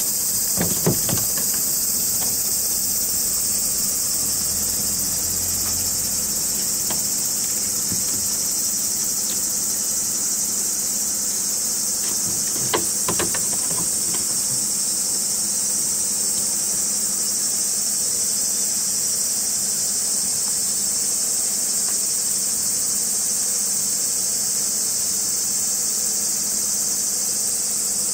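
Steady high-pitched insect chorus. A few light knocks on the plastic crate come near the start and again about halfway through, as the trapped kitten moves about inside it.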